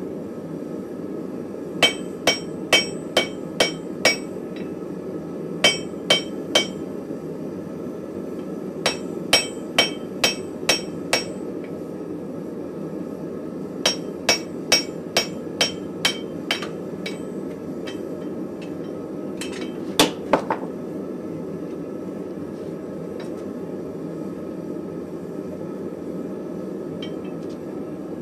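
Hand hammer striking a red-hot steel ball-peen hammer head on an anvil, in runs of quick ringing blows about two a second with pauses between runs. A steady low rushing noise runs underneath.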